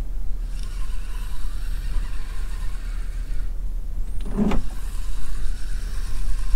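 Spinning reel being wound in, a steady whirring retrieve, over a constant low rumble. A brief louder sound comes about four and a half seconds in.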